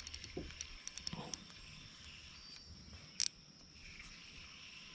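Insects trilling steadily in a high, even tone, with a few faint clicks early on and one short sharp click about three seconds in.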